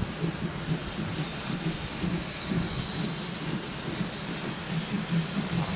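Steam locomotives 35 1097 and 01 0508 double-heading a train out of the station, their exhaust chuffing in a steady run of beats over a broad rumble.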